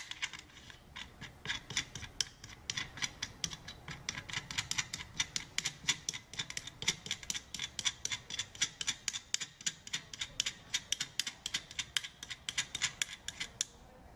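A ratchet clicking in rapid, even strokes, about five clicks a second, as a nut is run down a threaded rod to compress the spring stack of a Bridgeport variable-speed motor pulley. The clicking stops shortly before the end.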